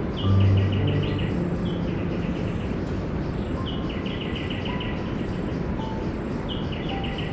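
Nature ambience: a fast pulsed chirping call repeats every two to three seconds over a steady wash of noise. A short low hum comes in about a third of a second in and is the loudest sound.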